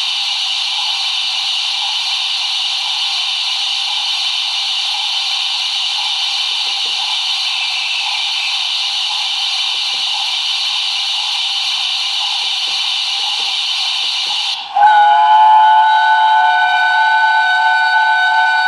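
Sound decoder in a Bachmann Tornado model steam locomotive, heard through its small speaker: a steady steam hiss, then about 15 seconds in it switches abruptly to a loud, long chime whistle sounding several notes at once, still held at the end.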